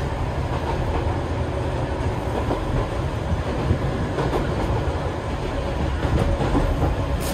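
Eizan Electric Railway 900-series 'Kirara' electric train running along the track, heard from inside the passenger car: a steady low rumble of wheels and running gear, with a few sharp clicks, the loudest near the end.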